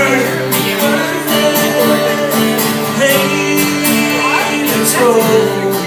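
Country song with a strummed guitar: a sung note ends the line just at the start, then the guitar plays on between vocal lines, with a few short sung glides later.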